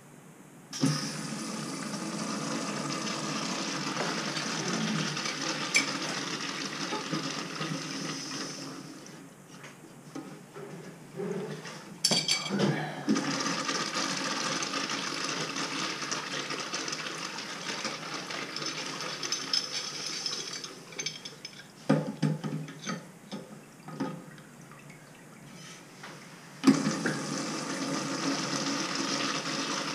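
Newly installed American Standard urinal flushed three times by its chrome flushometer valve: a rush of water lasting several seconds each time, starting about a second in, about twelve seconds in, and near the end. Between flushes, metal clinks and knocks as a wrench works on the flush valve while it is adjusted and test-flushed.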